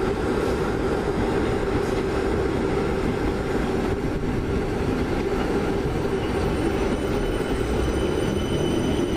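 South Western Railway class 455 and 456 electric multiple units departing: a steady rumble of wheels and traction motors with a constant hum, and near the end the motor tones begin to rise in pitch as the train picks up speed.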